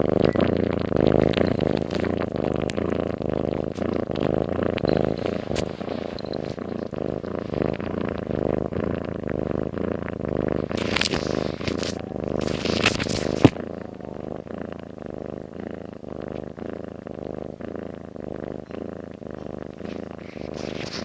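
A sleeping domestic cat's snoring purr, a steady fast fluttering rattle. Two short hissy noises come around the middle, then a sharp click, after which the purring runs on a little quieter.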